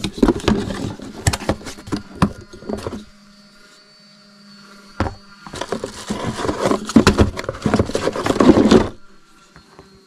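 Handling noise as a boxed cordless angle grinder is unpacked and handled: rustling and clattering with many small knocks, a single sharp knock about five seconds in, then more rustling and clatter that stops near the end. A faint steady hum sits under the quieter gaps.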